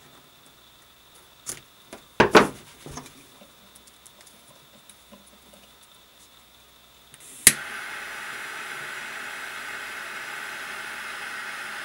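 Scissors snipping nylon paracord, a few sharp clicks about two seconds in. After about seven seconds a butane jet torch lighter clicks alight and its flame hisses steadily, melting the cut cord end.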